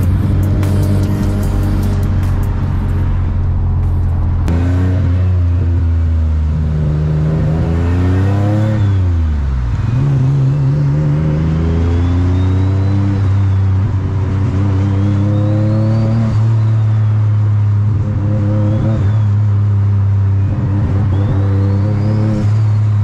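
Turbocharged VQ35DE V6 of an Infiniti G35 coupe heard from inside the cabin while driving at freeway speed. The engine note rises and falls with the throttle and dips sharply about nine seconds in before climbing again. A faint turbo whistle rises and falls several times.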